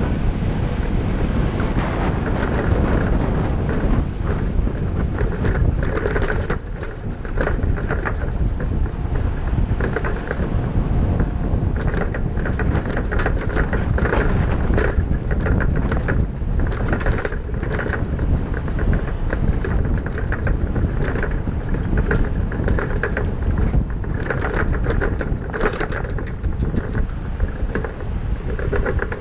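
Ford shuttle bus under way: steady engine and road noise, with frequent short rattles and knocks.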